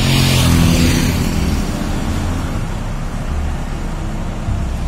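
Tour bus's diesel engine idling with a steady low rumble, with a hiss in about the first second.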